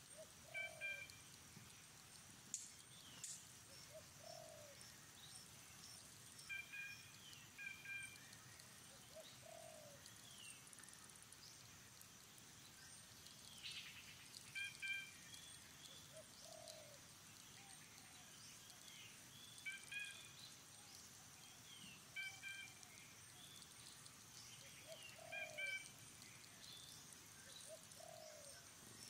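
Faint outdoor bird calls: a short, low coo that repeats every few seconds, and small clusters of high chirps, over a faint steady high insect hum.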